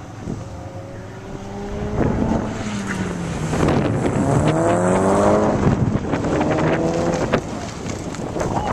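A sports car's engine at autocross pace: it revs up and eases off several times, rising in pitch on each pull. It is loudest about halfway through as the car passes close.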